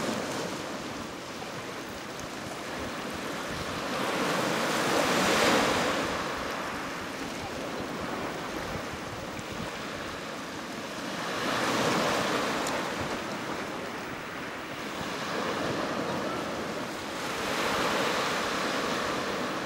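Sea waves washing onto a sandy beach. A steady surf noise swells louder about every six seconds as each wave breaks.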